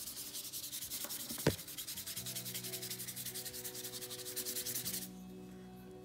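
Thick paintbrush loaded with acrylic paint scrubbed quickly back and forth across paper, a dry scratchy rubbing at several strokes a second that stops about five seconds in. A single sharp tick comes about a second and a half in.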